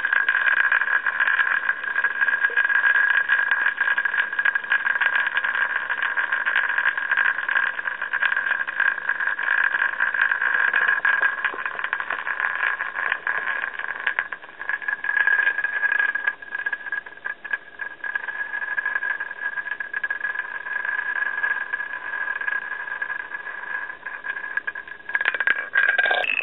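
Small plastic toy top spinning on rough concrete: a steady high whir with a fast rattle from its tip on the surface.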